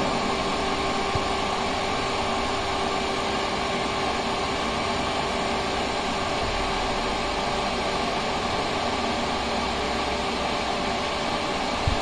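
Electric pressure-booster pump running steadily, a constant hum and rush, as it builds water pressure toward the pressure switch's cut-off point.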